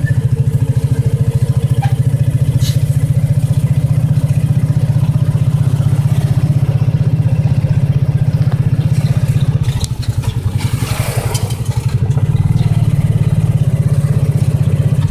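Motorcycle engine running steadily under way, heard from on the bike. It eases off briefly about ten seconds in, then picks up again.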